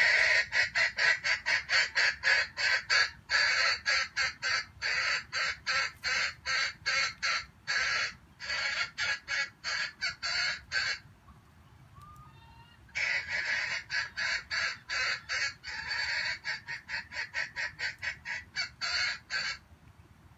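Junglefowl clucking in a rapid, even series of about three calls a second, breaking off about eleven seconds in and starting again two seconds later.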